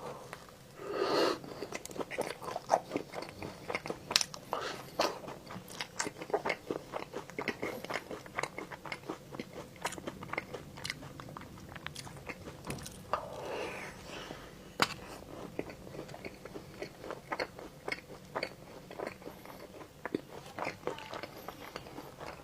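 Close-miked eating of pastry desserts: bites and steady chewing, with many small crunchy clicks.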